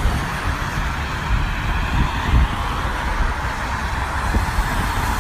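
Steady hiss of heavy rain falling, with a low, uneven rumble underneath.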